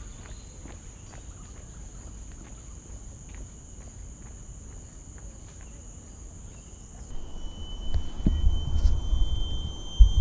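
Steady high-pitched insect drone with faint, regular footsteps. About seven seconds in, the insect chorus changes to a different set of pitches. Louder low thumps and rumble come in after that and are the loudest part.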